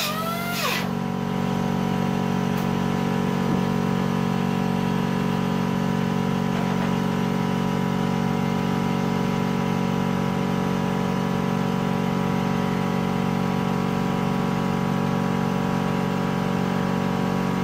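Steady motor hum that does not change in pitch or level.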